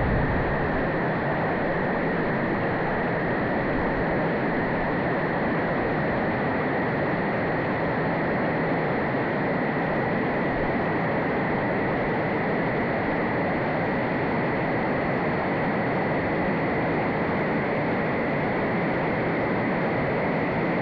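Mountain river flowing: a steady, even rush of running water.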